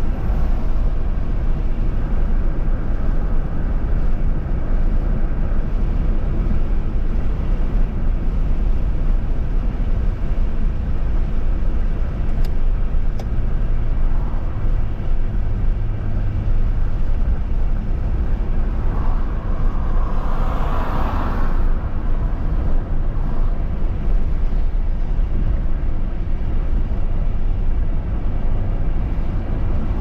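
Steady low rumble of a car's tyres and engine at highway speed, heard from inside the car. About twenty seconds in, a louder hiss swells up and fades within a few seconds.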